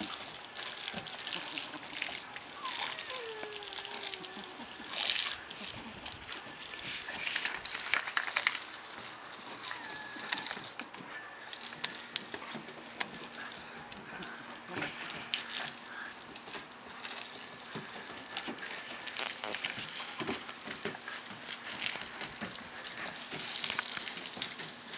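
Hose sprinkler spray hissing and spattering onto a wet wooden deck, with irregular splashes as a Weimaraner lunges and bites at the water.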